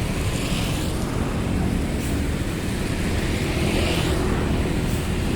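Road traffic noise: a large vehicle's engine running close by, steady and low, with two brief hissing swells.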